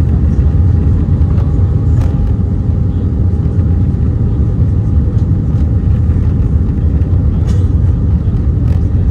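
Steady low rumble of airflow and the CFM56 engines, heard inside the cabin of an Airbus A319 descending on approach. A faint steady tone sits above it, with a few faint ticks.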